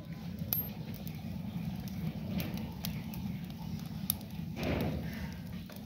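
Twig fire burning in a tandoor oven as it is heated for baking rotis: scattered crackles and pops over a low steady rumble, with a brief louder rush of noise just under five seconds in.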